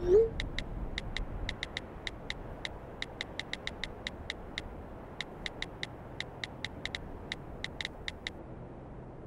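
Smartphone keyboard tap clicks as a text message is typed: a long run of short, identical clicks, several a second in uneven bursts, stopping about a second before the end, over a faint steady hiss. A brief rising tone at the very start is the loudest sound.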